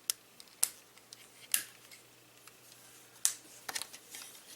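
Hard plastic parts of a Transformers Titans Return Misfire action figure clicking and snapping as the figure is handled and its small Titan Master figure is connected. There are a handful of sharp clicks, spaced irregularly.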